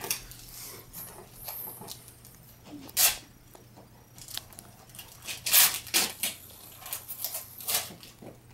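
Christmas wrapping paper rustling and tearing in irregular bursts as presents are unwrapped by hand.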